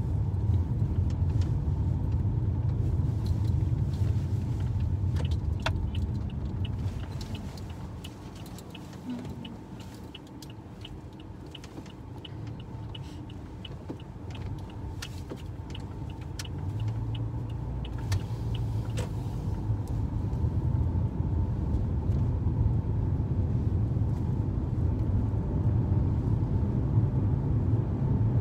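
Road noise inside a moving car: a steady low rumble from the engine and tyres that eases off for several seconds in the middle and then builds again. A faint regular ticking runs through the first two-thirds.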